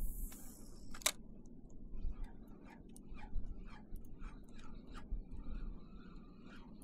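Spinning reel cast and retrieve. Line hisses off the spool, the bail snaps shut with a sharp click about a second in, and then the reel is cranked in a steady run of ticks, about three or four a second.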